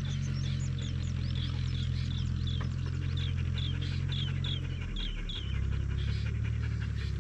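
Dogs panting, over a steady low hum. A short high chirp repeats two or three times a second.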